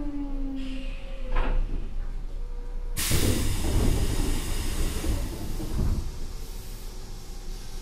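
Odakyu 1000 series electric train's Mitsubishi GTO inverter whine falling in pitch and dying away as the train brakes to a stop. About three seconds in, a sudden loud burst of compressed-air hiss as the train halts, fading over a few seconds.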